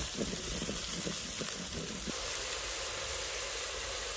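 Chopped onion, garlic and ginger paste sizzling in ghee in a clay pot. A wooden spoon knocks and scrapes through it for about the first two seconds, then only the steady sizzle remains.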